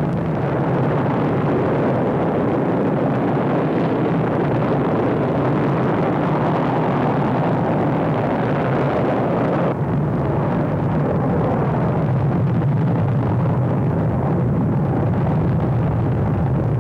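Vostok rocket engines at liftoff: a loud, steady rushing noise that continues as the rocket climbs, with the higher hiss dropping away about ten seconds in.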